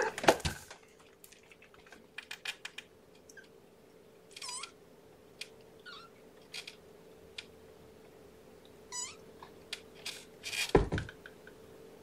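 Young kitten, under three weeks old, mewing with short high-pitched cries twice, a few seconds apart, among soft rustling and small clicks. Louder thumps and rustling at the start and again near the end, over a faint steady hum.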